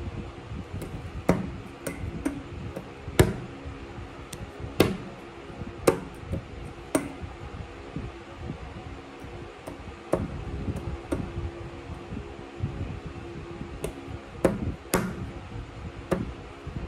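About a dozen sharp taps and knocks close to the microphone at uneven intervals, a few of them louder, over a steady low hum.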